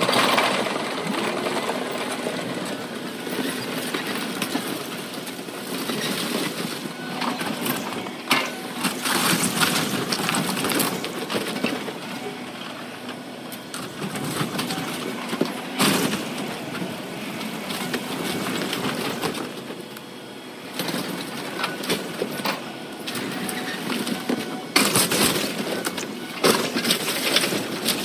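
Caterpillar tracked excavator running as it tears into a wood-framed building, with repeated crashes and crunches of breaking timber and falling debris, heaviest near the middle and near the end.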